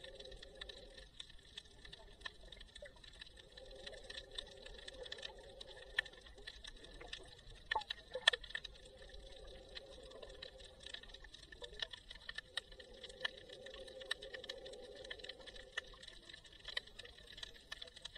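Underwater ambience picked up by an action camera in its waterproof housing: a dense crackle of small sharp clicks, with a louder cluster of clicks about eight seconds in. A muffled low swell rises and fades every four to five seconds.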